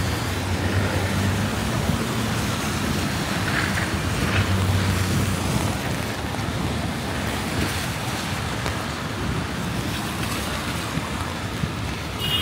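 Rainy city street traffic: a steady hiss of tyres and rain on wet pavement, with the low hum of vehicle engines swelling twice as vehicles pass or idle.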